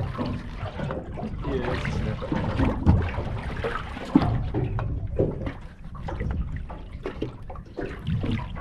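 Water sloshing and splashing, uneven throughout, with a sharp knock or splash about three seconds in and another just past four seconds.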